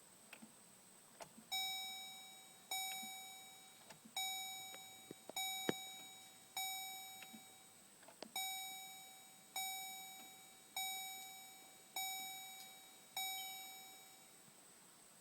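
A Chevrolet Colorado's dashboard warning chime dings about ten times, a little over once a second, each ding struck sharply and fading away. A few sharp clicks fall between the dings.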